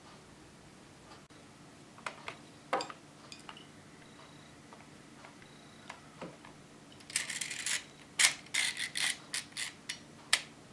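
3D-printed plastic model of a Hino-Komuro pistol being worked by hand: a few scattered clicks, then a short scraping rasp about seven seconds in, followed by a quick run of sharp plastic clicks and clacks.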